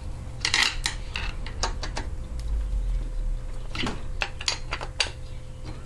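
Irregular metal clicks, taps and scrapes of a screwdriver working a screw and small hardware on a lawnmower engine's carburetor mount, over a steady low hum.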